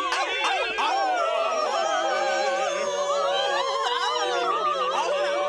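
Cartoon dogs howling together over operatic singing: several long, wavering, overlapping voices.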